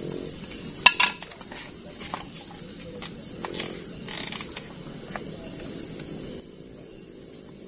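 Forest insects in a steady, high-pitched chorus, with a sharp knock about a second in and a few light clicks.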